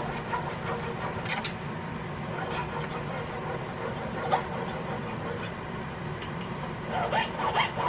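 Small round file rasping in short, light strokes inside the curve of a cast metal buckhorn rear sight clamped in a vise, clearing a burr left from the casting.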